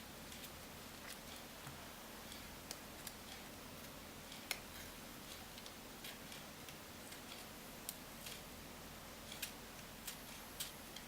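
Faint, irregular small clicks and taps of hand tools and phone parts being handled while an iPhone 5 is opened up for a screen replacement, over a quiet steady hiss.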